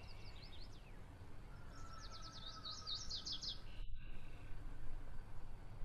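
Small birds chirping in quick runs of short, high, falling notes over a low background rumble, with the sound cutting out for a moment near the four-second mark.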